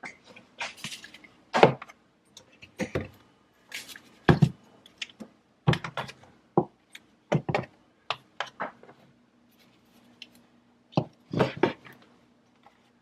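Spice jars and small kitchen containers being set down and moved about on a cabinet shelf: irregular knocks and clinks with short pauses between them.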